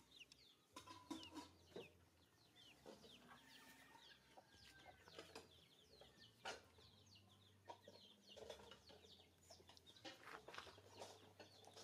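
Faint chickens clucking in the background, with many short, high, falling chirps and a few soft clicks.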